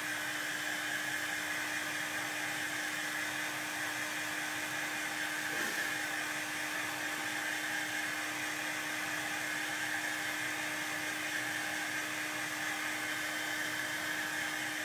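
Small handheld craft heat tool running steadily, blowing hot air with a steady hum over a hiss, drying wet chalk paste.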